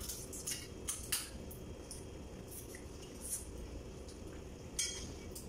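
Scattered sharp cracks and clicks of crabs being eaten by hand: shells cracked and bitten apart, with the odd clink of plates and utensils.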